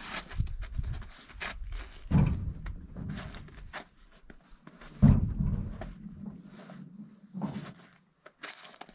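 Hand work on tractor wheel hardware with tools: scattered clicks and metallic knocks, with two heavy thunks about two and five seconds in, the second the loudest.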